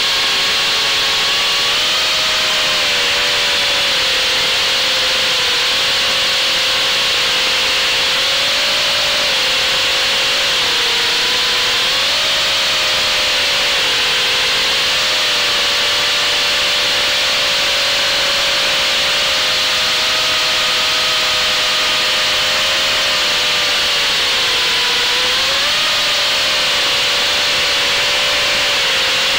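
FPV racing quadcopter's electric motors and propellers whining, heard from the onboard camera, the pitch dipping and rising every few seconds as the throttle changes, over a steady hiss.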